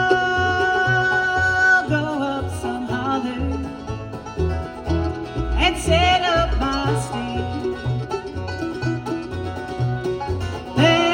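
Bluegrass band playing a slow song: banjo and guitar with long held sung notes over a steady bass line.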